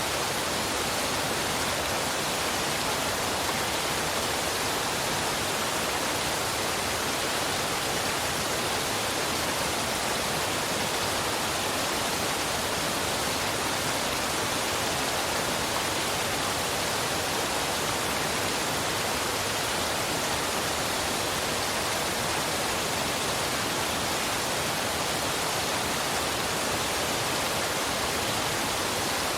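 A waterfall pouring steadily: an even rush of falling water with no breaks or changes in level.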